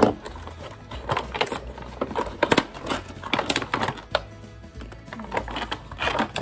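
Clear plastic packaging crinkling and rustling in short irregular bursts as it is handled and opened, over steady background music.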